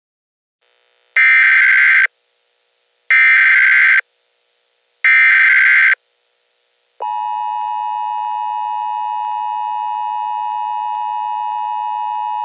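Emergency Alert System SAME header: three harsh digital data bursts of about a second each, a second apart. About seven seconds in, the steady two-tone EAS attention signal starts and holds, marking the start of a new alert.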